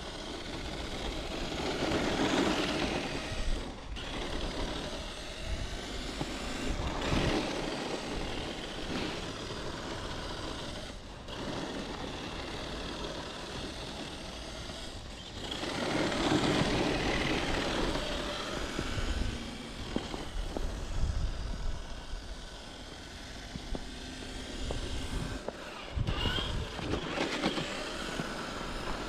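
Electric RC truck driving through snow: its motor and gear whine comes and goes in several surges of throttle, with the tyres churning the snow.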